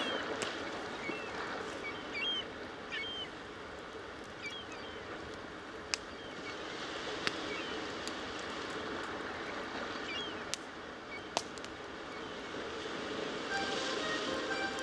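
Wood fire crackling, with several sharp pops, over a steady rushing noise. A few short bird chirps come through in the first few seconds and again near the end.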